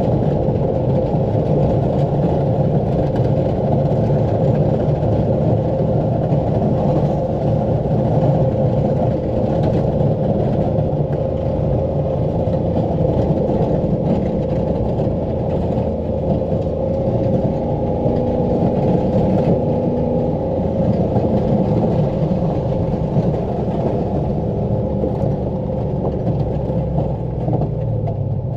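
Pickup truck engine running steadily under load in four-wheel-drive low while plowing heavy wet snow: a continuous low drone with a faint steady whine above it.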